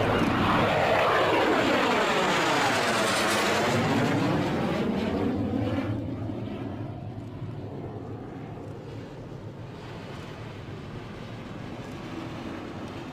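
Boeing 747-8's four General Electric GEnx turbofans at takeoff power as the jet rolls past on its takeoff run. The loud jet noise carries a hollow whoosh that sweeps down and back up in pitch as the plane passes closest, then fades away from about six seconds in.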